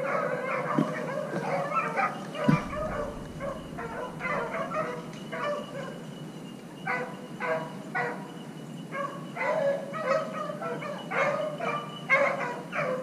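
Pack of beagles baying and yelping in full cry as they run a rabbit, many voices overlapping in quick repeated calls. A single sharp knock sounds about two and a half seconds in.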